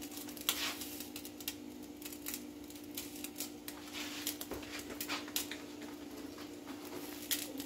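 Scattered light clicks and taps of kitchen prep at a plastic cutting board as chicken breasts are cut in half, over a steady low hum.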